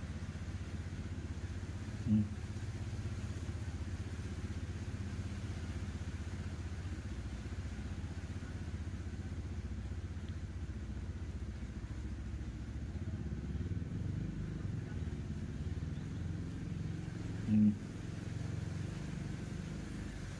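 A steady low rumble, with two brief, louder low tones: one about two seconds in and one near the end.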